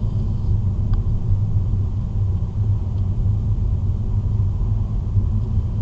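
Steady low road and engine rumble inside a car cruising at about 40 km/h.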